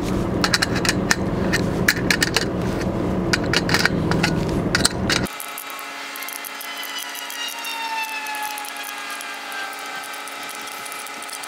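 Adjustable wrench clicking and scraping on the bolts and nuts of an aluminium pole bracket as they are tightened onto a steel pipe. About five seconds in the clicking cuts off, leaving a quieter steady background with faint, slowly falling tones.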